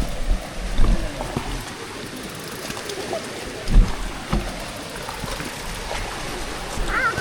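Mountain bike ridden over a rough trail: a steady rushing noise with knocks and thumps of the bike over the ground, the biggest about a second in and near four seconds in.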